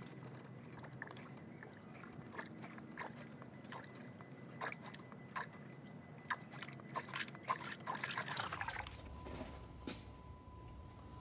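Coolant trickling through a funnel into a truck's cooling system as it is refilled, with scattered small clicks and knocks.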